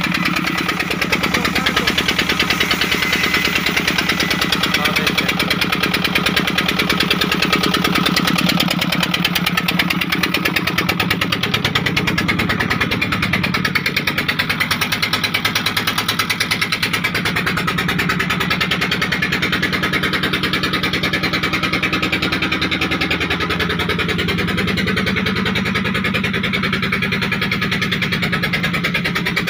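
The engine of a wood-cutting sawmill machine running steadily with an even, rapid pulse.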